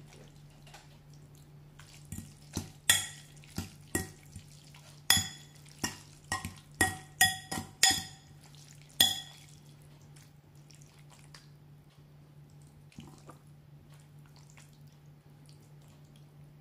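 Metal fork clinking against a ceramic bowl while tossing spaghetti in tomato sauce: about a dozen sharp, ringing clinks between two and nine seconds in, then quieter stirring and twirling of the pasta. A faint steady low hum runs underneath.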